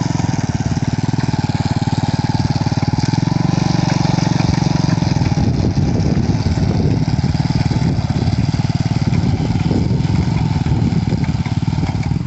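Small motorcycle engine of a homemade bike plough running steadily with a rapid even firing beat; about five seconds in its sound becomes rougher and less even.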